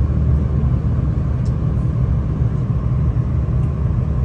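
Steady low rumble of a passenger train carriage running along the track at speed, heard from inside the carriage.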